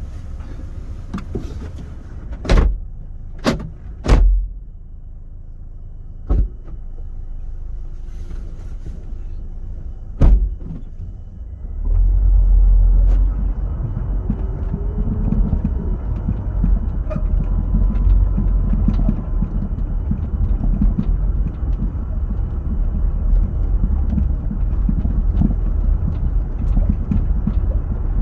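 Land Rover Freelander 2 with a knocking rear suspension: a handful of sharp single knocks over a low hum, then about twelve seconds in a louder steady low rumble as the car gets under way, with faint ticks in it.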